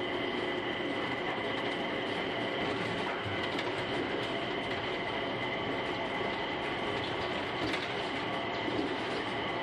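Mitsubishi Crystal Mover automated people mover running on its rubber tyres, heard from inside the car: a steady running rumble with a constant high whine, and a few faint clicks near the end.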